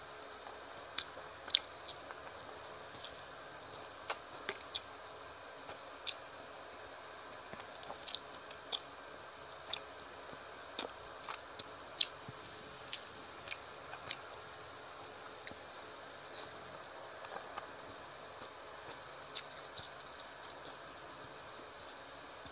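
Close-miked eating sounds: irregular wet clicks and smacks of chewing, along with the squish of rice being mixed by hand with fish curry on a plate.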